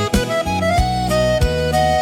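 Instrumental break in a sertanejo raíz song: an accordion (sanfona) carries the melody over acoustic guitar (violão) and a steady low beat.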